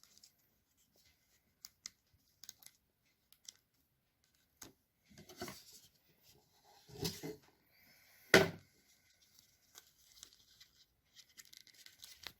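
Packaging and small accessories being handled: scattered light clicks and rustling, with one sharp, louder knock a little past eight seconds in.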